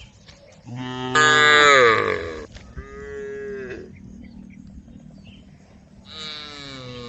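Cows mooing: a loud, long moo that drops in pitch near its end, a shorter, softer one straight after, and another starting near the end.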